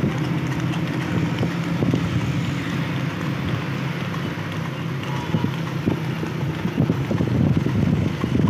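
A vehicle engine running steadily while moving at road speed, with wind buffeting the microphone; the gusty rumble grows heavier in the last few seconds.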